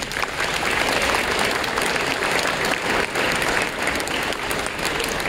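Audience applauding, breaking out suddenly at the start and going on steadily.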